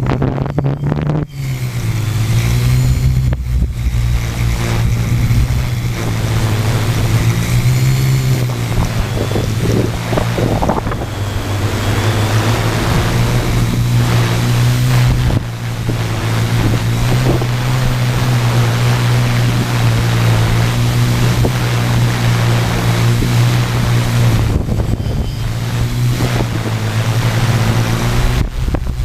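Multirotor drone's electric motors and propellers humming steadily, the pitch wavering up and down as motor speeds change, with wind buffeting the microphone.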